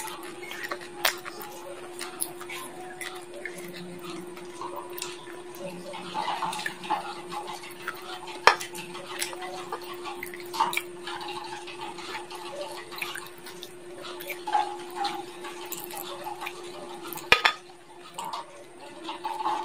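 Chicken bones being bitten and chewed close to the microphone, mixed with clicks and clinks of a steel plate being handled. Two sharp clacks stand out, one a little before halfway and one near the end, over a steady hum.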